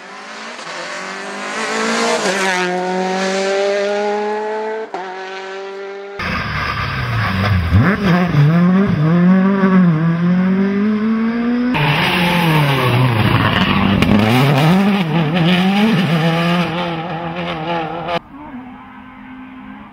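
Rally car engines at full throttle in a run of short clips. First a car approaches with its engine note climbing, then engines rev hard with the pitch swinging up and down through gearshifts and lifts. Near the end the sound drops to a quieter, steadier engine note.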